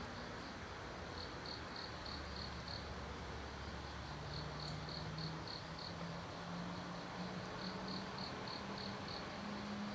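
Crickets chirping in short trains of rapid, evenly spaced high chirps that repeat every few seconds, over a steady outdoor hiss. A low hum rises slowly in pitch through the second half.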